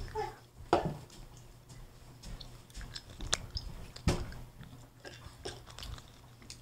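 Irregular light taps, clicks and knocks of handling close to the microphone. There is a sharp click a little past three seconds in and a heavier knock about four seconds in.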